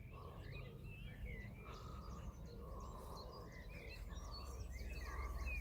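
Faint outdoor birdsong: a run of short chirps and warbles from songbirds, over a steady low background rumble.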